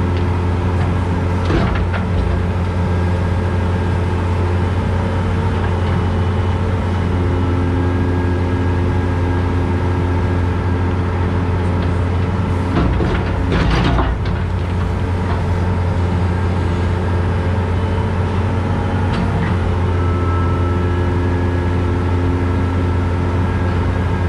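CAT 321C excavator's diesel engine running steadily under load, heard from inside the cab, with the hydraulics working as the bucket digs dirt. A few clanks and scrapes of the bucket, the loudest about 13 to 14 seconds in.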